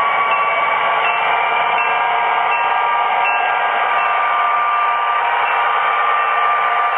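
MTH model EMD GP9 diesel locomotives running together under heavy throttle, their onboard sound systems playing diesel engine sound through small speakers as a steady, thin, hissy drone with no bass.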